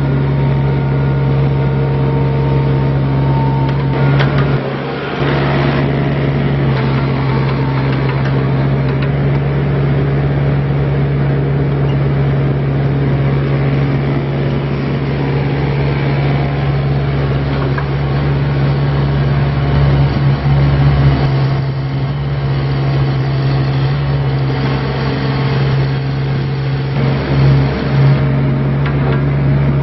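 2012 Bobcat 324 mini excavator's Kubota diesel engine running steadily, its note briefly changing a few times.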